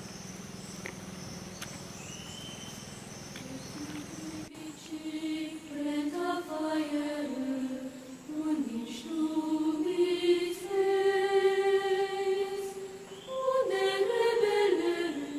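Music with singing in long held notes that slide from pitch to pitch, coming in after about four seconds over a steady hum.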